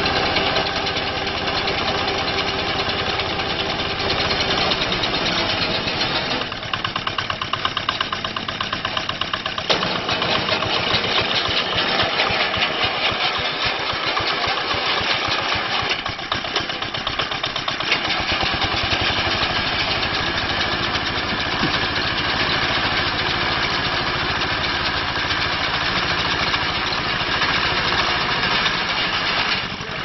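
Engine of a small walk-behind reaper harvester running steadily while it cuts standing rice. The engine note changes abruptly several times.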